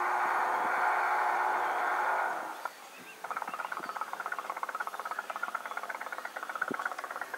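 Model steam tug's small steam engine running, a rapid, even chuffing with steam hiss. It is fuller for the first couple of seconds, drops briefly about two and a half seconds in, then carries on as a quicker, thinner pulsing.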